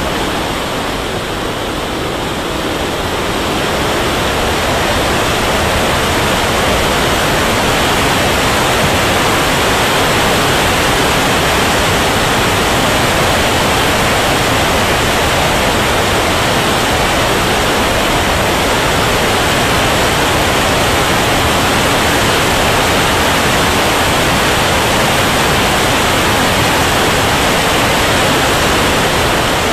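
Steady rushing noise of airflow and turbine exhaust picked up by a camera mounted on an RC turbine jet in flight. It is a little quieter for the first few seconds, then holds level.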